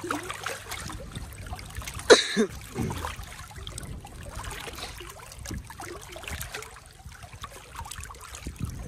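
Water lapping and trickling around a small floating raft of plastic drums. There is one short, loud, sharp sound about two seconds in.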